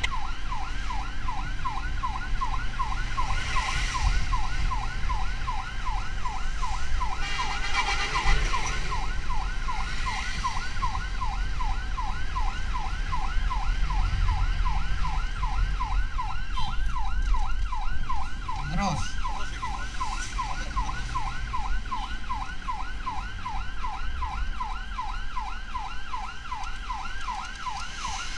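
Electronic ambulance siren in a fast yelp: rapid rising sweeps repeating about three times a second, over the low rumble of the moving vehicle.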